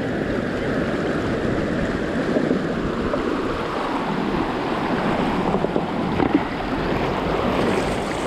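Shallow, fast river rushing and splashing over rocks close to the microphone, where it pours over a line of stones laid as a diversion dam.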